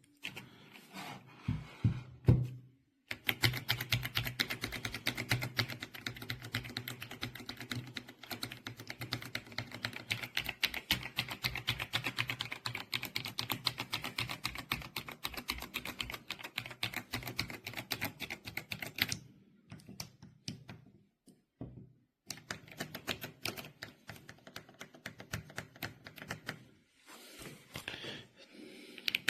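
Fast typing on a mechanical keyboard, many keystrokes a second. It breaks into scattered keystrokes after about 19 s, picks up again at about 22 s, and pauses briefly near the end.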